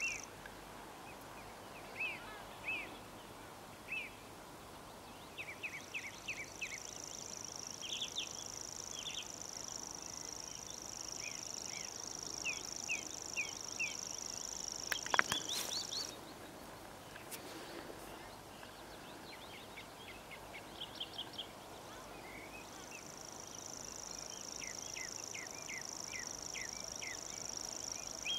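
A warbler singing a faint, high, unbroken reeling song that runs for about ten seconds at a stretch, breaks off just past the middle and starts again about three quarters of the way through. Over it a song thrush sings short phrases, each note repeated in quick groups. A sharp knock, the loudest sound, comes about halfway through.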